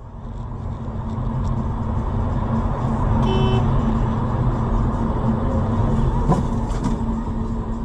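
Steady road and engine rumble of a car driving on a busy highway. A short car-horn honk sounds about three seconds in, and a couple of sharp knocks follow a little after six seconds.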